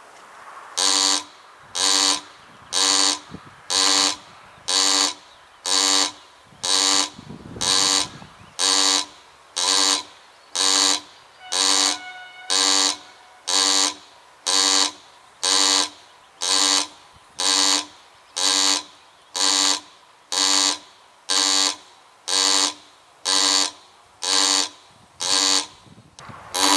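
KBB-6 electromagnetic buzzers of an automatic railway level crossing sounding their warning, a harsh buzz pulsing about once a second and starting about a second in: the crossing has been activated by an approaching train.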